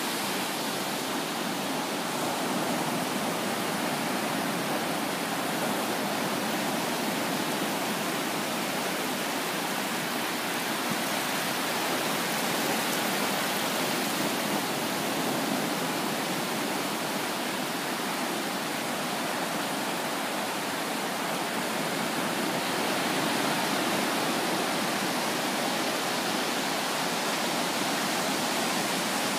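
Ocean surf: small waves breaking and washing up a sandy beach, a steady rushing hiss that swells slightly and falls back.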